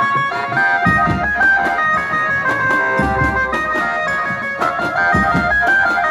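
Banjo-party band playing through horn loudspeakers: an amplified, keyboard-like melody line moving over tom drums, with heavy drum strikes about a second in, around three seconds and again near five seconds.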